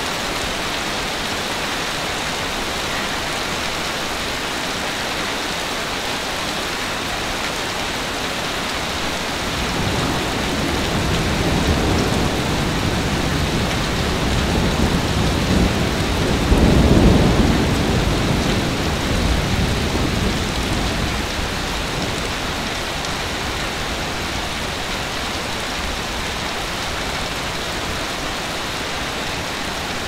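Steady rain falling over a city, with a long low rumble of thunder that builds about a third of the way in, peaks just past the middle and dies away again.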